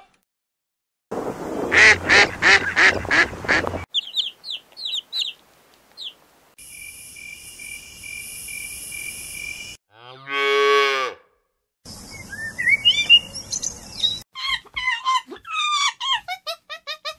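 A run of separate animal sounds: first about six rhythmic honking calls from flamingos, then a snake's steady hiss lasting about three seconds, then a string of short, high, sliding cries near the end.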